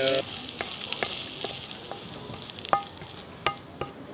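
Hot fried rice sizzling as it is pushed out of the pan with a spatula. Several sharp knocks of the spatula against the pan ring briefly, the loudest about two and a half seconds in. The sizzle dies away about three seconds in.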